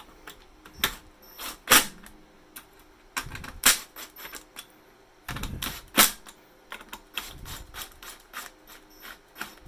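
Irregular clicks and knocks of hardware being handled inside a Dell R630 server chassis, with a few sharper hits and some duller thumps among them.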